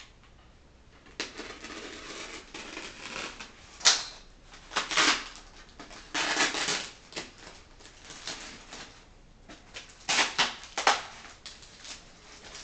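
Clear plastic parts bags and a polystyrene foam packing insert being handled, giving irregular rustles and crinkles, with a sharp snap about four seconds in.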